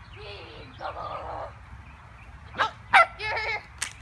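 Dog barking excitedly: two sharp barks about two and a half and three seconds in, then a short run of quick barks.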